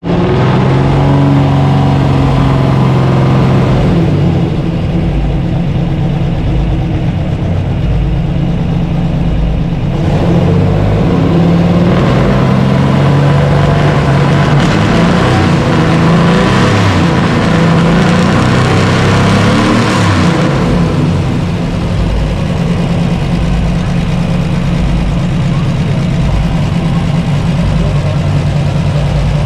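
BMW 328-type 2.0-litre straight-six race-car engine idling steadily, then revved up and down repeatedly from about ten seconds in until about twenty seconds in, when it settles back to idle.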